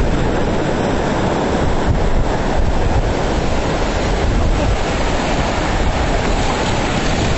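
Small surf breaking and washing over a sandy beach, with wind rumbling on the microphone: a steady, unbroken rush of noise.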